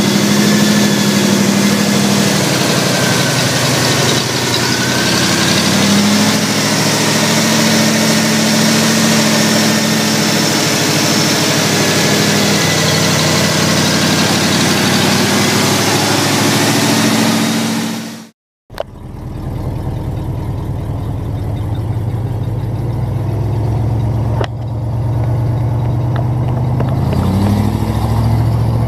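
1972 Ford F100's V8 idling steadily, heard close up in the open engine bay. After a sudden cut, the truck's engine is heard running as it drives along the road, its pitch rising near the end as it speeds up.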